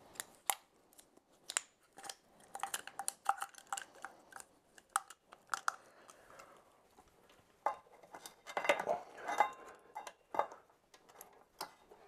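Metal clicks, clinks and light rattles of a motorcycle rear brake caliper and its brake pads being handled and fitted, the pads shifting against the caliper body. There is a busier run of clinks about two-thirds of the way through.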